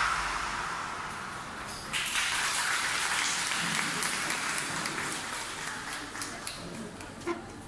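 Backing music dying away, then an audience applauding, starting suddenly about two seconds in and slowly fading, with a few single claps near the end.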